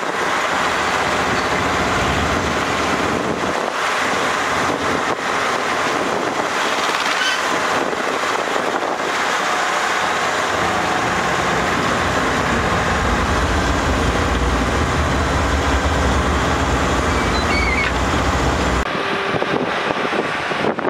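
Engines of old heavy machinery running: a vintage six-wheel truck and a dragline crane, with wind buffeting the microphone. A deeper engine rumble comes in about halfway and stops near the end.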